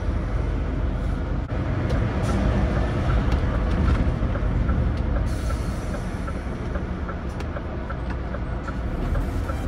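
Scania truck's diesel engine running under way with road noise: a steady low rumble, with a light regular ticking over it.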